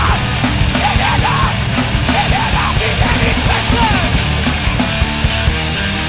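Loud, dense heavy rock from a full band: distorted electric guitars, bass and hard-hit drums playing together without a break, with short bent notes sliding over the top.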